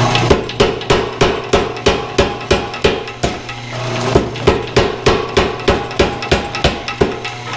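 Power hammer striking hot steel in a steady rhythm, about three blows a second, over the hum of its running motor. The blows pause briefly a little past three seconds in, then start again.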